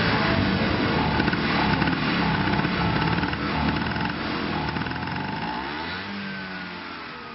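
Vintage Vespa scooter's two-stroke engine running and being revved with the twist grip, its pitch wavering. Near the end the revs drop and the sound fades out.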